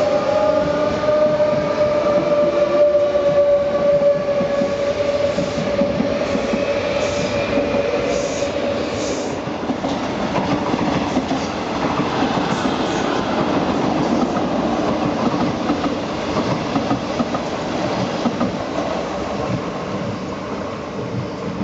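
Rodalies electric commuter trains running past: a traction-motor whine slowly drops in pitch and fades over the first nine seconds or so, over a steady rumble and rattle of wheels on rail that carries on throughout.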